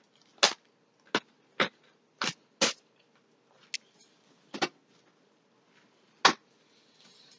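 A person eating mussels: a string of about eight short, sharp clicks and smacks, unevenly spaced and with short pauses between them.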